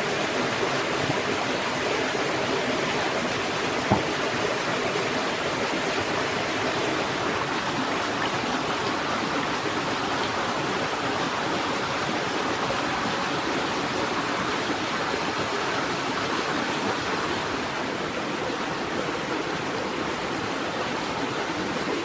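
Shallow rainforest stream running steadily over rocks. A single sharp click about four seconds in.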